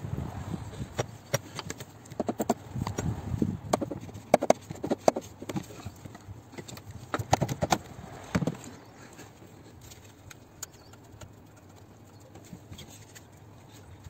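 Irregular sharp clicks and knocks of metal parts being handled at the turbocharger mounting, thick for about eight seconds, then thinning to a few faint ticks.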